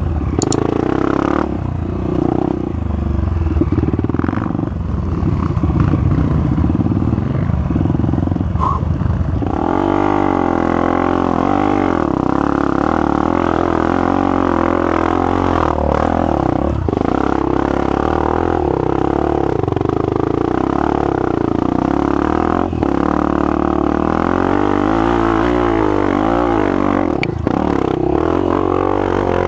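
Honda CRF 250F four-stroke single-cylinder trail bike with a Pro Tork Powercore 3 aftermarket exhaust, running loud and rough under throttle on a dirt trail. About ten seconds in it settles into a steadier engine note whose pitch wavers with the throttle.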